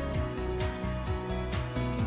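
Background music: instrumental track with a steady beat.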